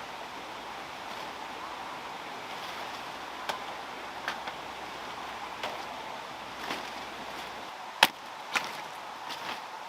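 A series of irregular sharp knocks over a steady background hiss, the loudest strike about eight seconds in.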